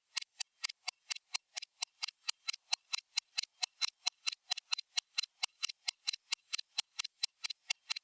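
Stopwatch ticking sound: sharp, high clicks at a fast, even rate of about five a second.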